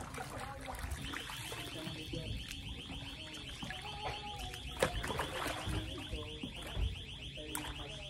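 Wet laundry being swished and dunked by hand in shallow lake water, with light splashing. From about a second in, a high, rapidly pulsing buzz runs steadily on.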